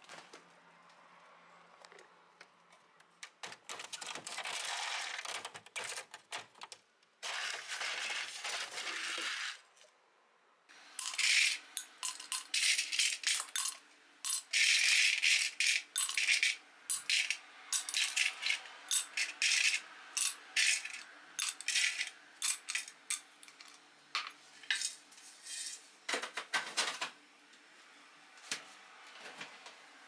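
Ice cubes clinking and clattering one after another into a glass drinking tumbler, many sharp clicks over about fifteen seconds. Before that come a few seconds of rustling and scraping as the freezer drawer is opened and the ice is handled.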